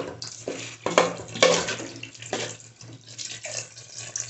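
Water poured in a stream from a steel bowl into an aluminium pot of okra curry, splashing unevenly, with a couple of sharper splashes about a second in.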